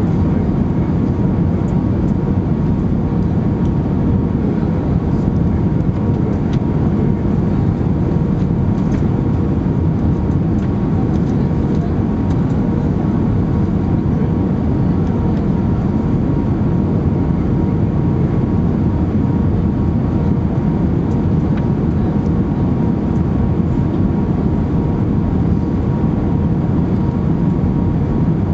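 Steady cabin rumble of an Airbus A319-112's CFM56 jet engines and rushing airflow on final approach to land, with a faint steady hum running through it.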